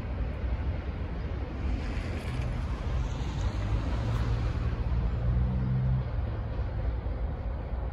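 Freight train's steady low rumble as it rolls away down the line, mixed with wind on the microphone. A low hum joins in from about two seconds in and fades near six seconds.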